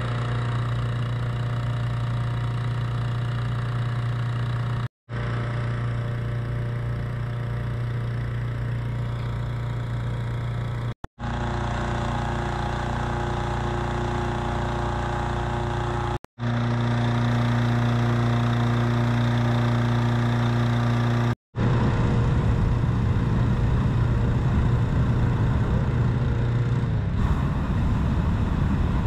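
An engine running steadily at an even speed, heard across several short clips that cut off abruptly every five or six seconds; the last clip is louder and rougher.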